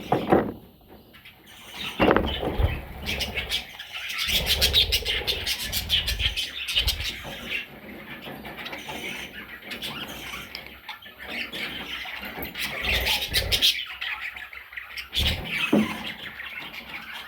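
Budgerigars chirping and chattering continuously, with short sharp calls, over a few soft low thumps.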